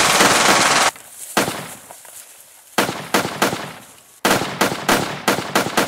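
Gunfire: a loud continuous burst for about the first second, then single shots and quick runs of shots, each with a short echoing tail.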